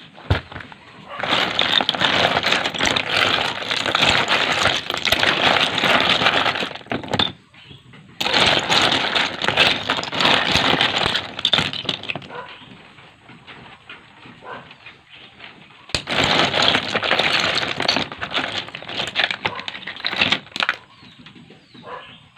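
A hand stirring a basin of wet cockles and sea snails, the shells clattering and grinding against each other in three long bouts with quieter pauses between.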